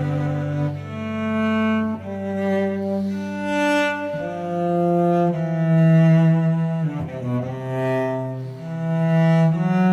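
Music: a slow melody of long held notes on bowed strings in a low register, each note sustained for a second or two before moving to the next.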